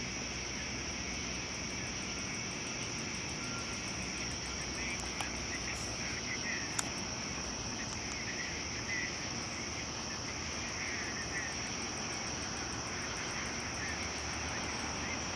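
Night insects, crickets among them, trilling steadily in a continuous high chorus with a faster pulsing trill above it. A sharp click comes about seven seconds in.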